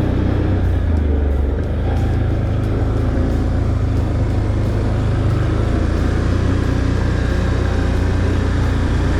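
Can-Am ATV engine running steadily at trail speed, a low, even drone.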